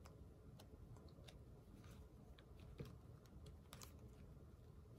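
Near silence with about ten faint, scattered small clicks and taps from stickers and paper being handled on a desk.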